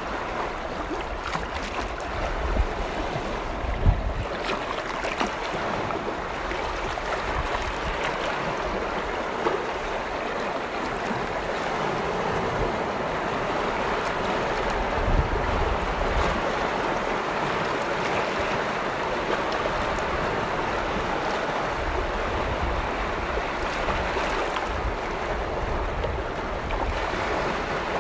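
Small lake waves washing steadily against the shore, an even rushing wash with a few low thumps, about 4 and 15 seconds in.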